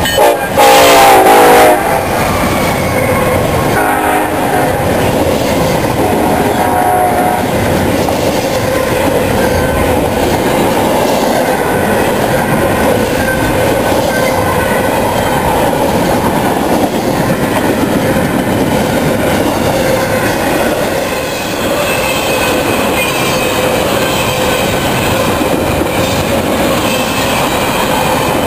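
Norfolk Southern SD70ACe diesel locomotive sounding its horn as it passes: a short blast and a longer loud one right at the start, then two shorter blasts a few seconds later. After that comes the steady rumble and clickety-clack of a long intermodal train's well cars rolling by, with a thin wheel squeal near the end.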